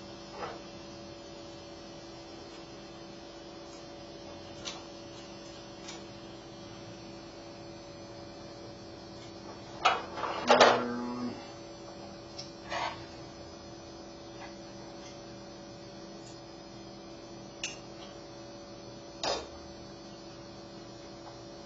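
Scattered small clicks and clatter of a 250-volt, 50-amp plug's parts and wire terminals being handled while the plug is wired, with a louder cluster of knocks about ten seconds in, over a steady electrical hum.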